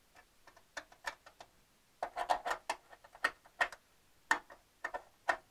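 Light, irregular clicks and taps of hand work, a pen being used to draw a marking line. They come in a quick cluster about two seconds in, then a few more scattered near the end.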